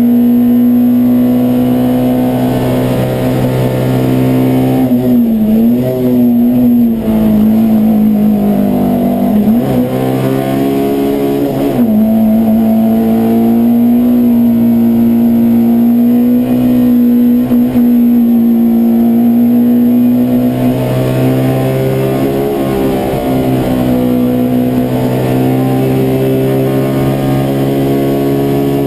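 Peugeot 205 1.3 Rallye Group A four-cylinder engine running hard at high revs, heard from inside the cabin. The engine note holds steady at a high pitch and dips briefly several times before climbing back.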